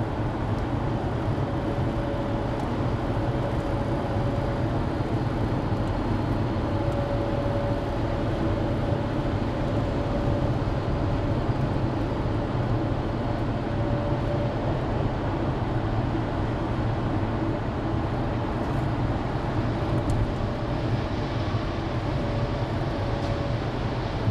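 Steady engine drone and road noise inside a vehicle's cab cruising at highway speed, about 60 mph. A faint steady whine comes and goes over the low rumble.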